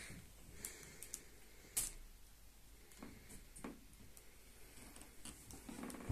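Faint handling sounds: scattered small clicks and taps, the sharpest about two seconds in.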